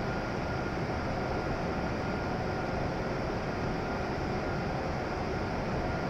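Steady noise of a W7 series shinkansen standing at a covered station platform, with its onboard equipment running.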